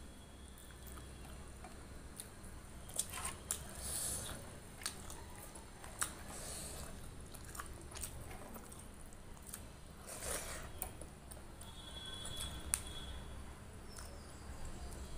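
Close-miked eating sounds of rice and curry eaten by hand: chewing and wet mouth noises, with squishing as fingers mix the rice into the thin rasam on the plate. Scattered sharp clicks and smacks throughout, the loudest about a dozen seconds in.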